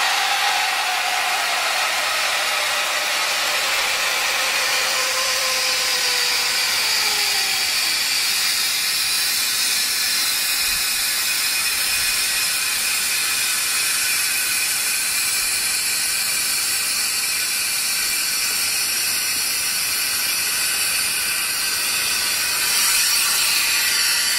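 Compressed air from a high-pressure air bottle, filled to about 1500 PSI, hissing steadily through an opened ball valve and vinyl hose into a homemade ripstop-nylon avalanche airbag as it inflates. Faint whistling tones fall in pitch during the first several seconds.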